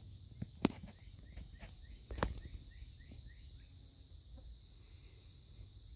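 A bird calls a quick string of short rising chirps, about three to four a second, over a steady high insect drone. Two sharp knocks stand out, one near the start and one about two seconds in.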